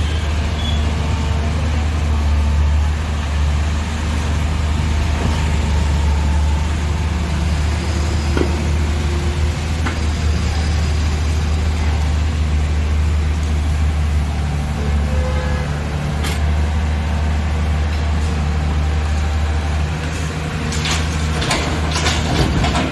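Diesel engine of heavy earthmoving machinery running steadily with a deep hum, and a series of metallic clanks and rattles near the end.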